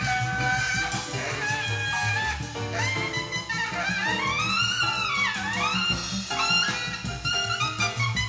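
Jazz quartet recording played back through a pair of Estelon XA floor-standing loudspeakers in a room. A saxophone lead swoops up and down in pitch about halfway through, over a walking bass and cymbals.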